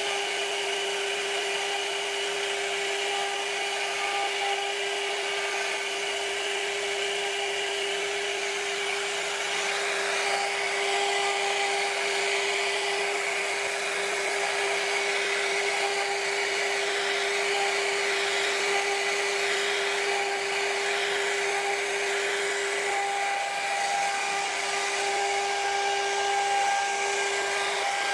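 Blue Elephant CNC router's spindle carving a wooden door panel, running at a steady high whine with the hiss of the bit cutting wood over it.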